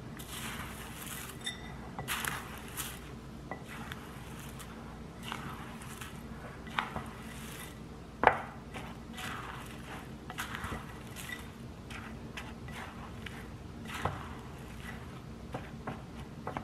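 A spatula stirring dry flour and grain cereal in a glass mixing bowl: repeated scraping swishes with clicks of the spatula against the glass, the sharpest about eight seconds in.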